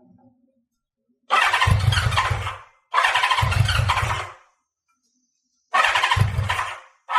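Honda CB550F's inline four-cylinder engine being turned over in short starting attempts, three times, each burst lasting about a second and a half and fading off without settling into a steady idle.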